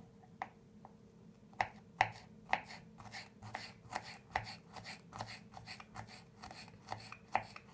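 Knife cutting a garlic clove into several pieces: a quick series of sharp taps, about two or three a second, the loudest between about one and a half and two and a half seconds in.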